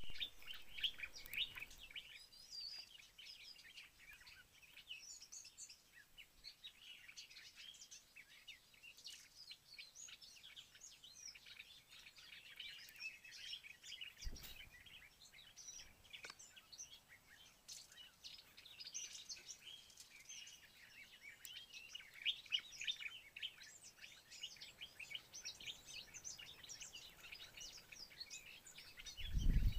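Many small birds chirping and twittering together in a dense, continuous chorus of short high notes. A brief low thump about halfway through, and a low rumble right at the end.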